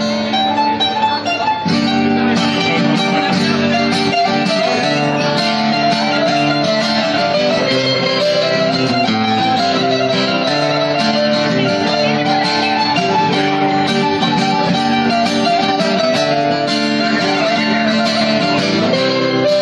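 Instrumental intro played on bouzouki and acoustic guitar: a plucked melody line over guitar chords, without singing.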